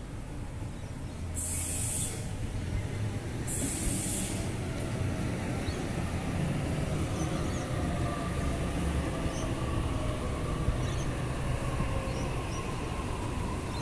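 Sydney Trains double-deck electric passenger train rumbling into the platform and slowing, its motor whine falling gradually in pitch as it brakes. Two short hisses come in the first four seconds.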